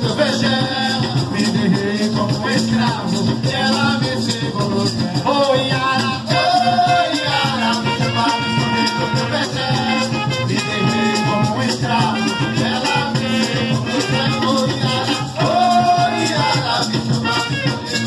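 Carimbó band playing live: drums keep a steady beat with maracas shaking over it, under a melody line.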